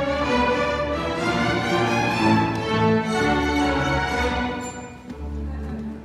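Junior high orchestra playing loud, sustained chords on bowed strings, growing softer near the end.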